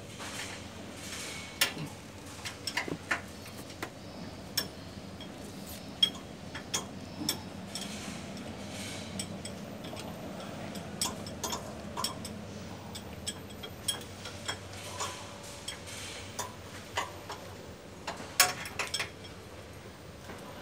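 Irregular sharp metallic clicks and clinks of hand tools and parts as a technician works on the handrail drive chain and sprocket in the machinery pit of a moving walkway, with a louder cluster of clinks near the end.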